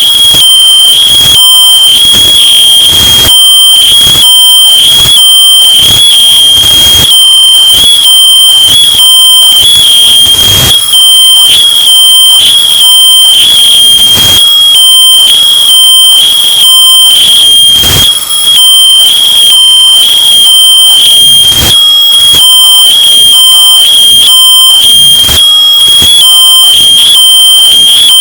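Smoke detector alarm beeping over and over at a high pitch, about two beeps a second. It is heavily bass boosted and distorted, clipping at full volume.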